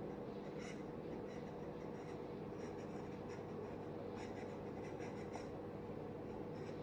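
Pen scratching on paper in short strokes, a few at a time, over a steady low hum.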